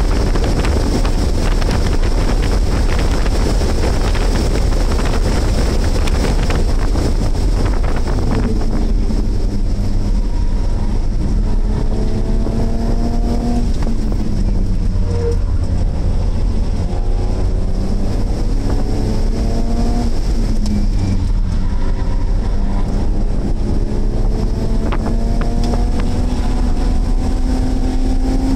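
BMW track car's engine heard from inside the cabin while lapping, under heavy road and wind noise. Its pitch climbs steadily in gear and drops back several times at shifts and braking.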